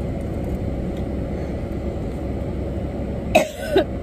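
A woman coughing twice, short hard coughs about three and a half seconds in, over a steady low hum inside the car cabin.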